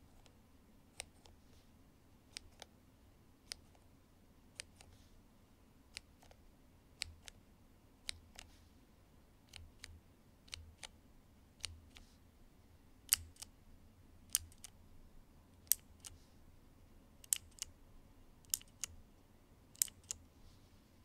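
Cherry MX mechanical key switches pressed and released one at a time, giving sharp separate clicks, often in close pairs, at an uneven pace of about one or two a second. The strokes grow louder about halfway through.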